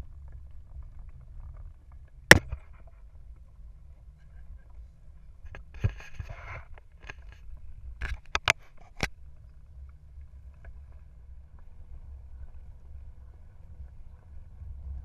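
Steady low rumble of wind and road noise on a bicycle-mounted camera while riding, broken by sharp knocks: a loud one about two seconds in and a quick run of three around eight to nine seconds. A short rattly hiss comes about six seconds in.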